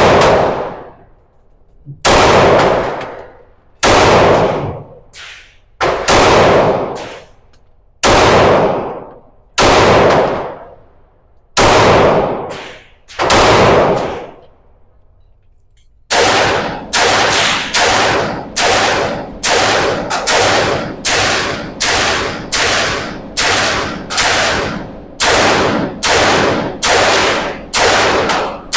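Gunshots at a shooting range, each followed by a long echoing tail. About ten are spaced roughly two seconds apart, then from about halfway a faster even string of shots runs at around three every two seconds.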